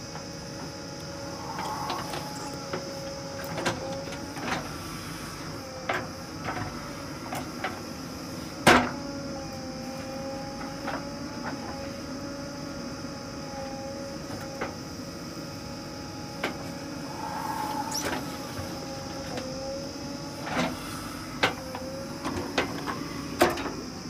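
JCB 3DX backhoe loader digging with its backhoe arm: a steady engine and hydraulic whine that wavers in pitch as the load changes, broken by scattered sharp clanks and knocks, the loudest about nine seconds in and several close together near the end.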